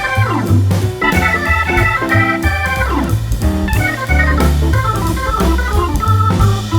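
Background music led by an electric organ, with bass notes and a steady beat.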